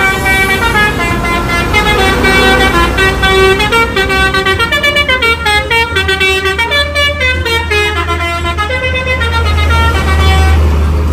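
Bus telolet horn, a multi-note musical air horn, playing a quick tune of stepping notes. The bus's engine rumbles low underneath and grows louder in the second half, and the horn tune stops shortly before the end.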